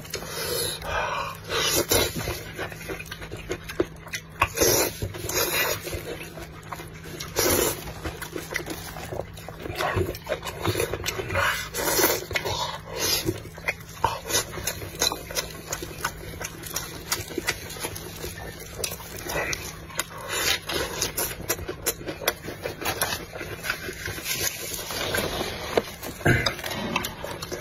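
Close-miked chewing and lip-smacking of a man eating lettuce-wrapped pork with kimchi and spicy noodles. Wet smacks and crunches repeat irregularly throughout.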